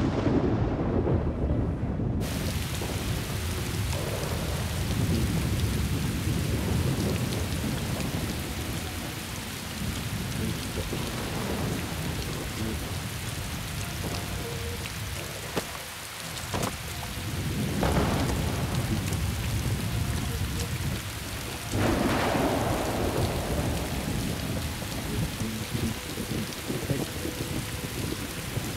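Heavy downpour with rolling thunder. The rain hisses steadily while the thunder rumbles low, breaking into a few louder claps, the sharpest two a few seconds apart past the middle.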